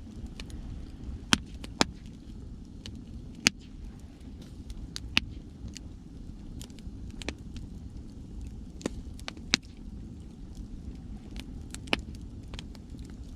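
A wood bonfire crackling, with irregular sharp pops, the loudest about a second and a half in, at three and a half seconds, and twice more later. Under it runs a steady low rumble of ocean waves.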